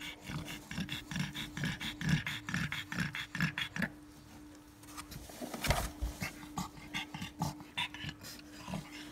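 Pug panting rhythmically, about two to three short breaths a second, during labour, pausing for a second or so, with a loud handling thump about halfway through before the panting resumes.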